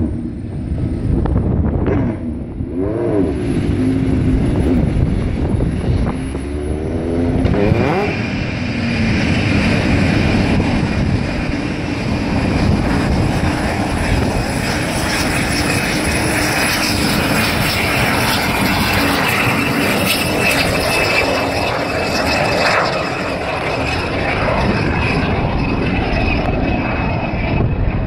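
Home-made gas turbine jet engine on a mobility scooter running. Pitch slides up and down at first, then about eight seconds in it builds to a loud, sustained roar with a steady high whine over it.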